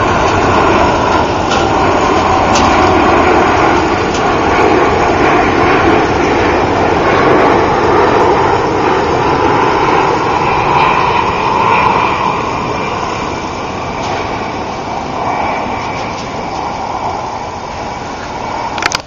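Jet airliner passing low overhead: a loud, steady rush of jet engine noise that slowly fades over the second half.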